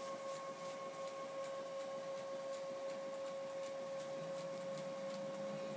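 A steady, even hum at one mid pitch with a fainter higher overtone, over low hiss and faint irregular ticks.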